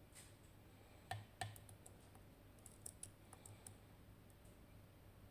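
Faint clicks and ticks of a lock pick working the split wafers of a Tokoz Tech lock under tension: two sharper clicks about a second in, then a scatter of small ticks.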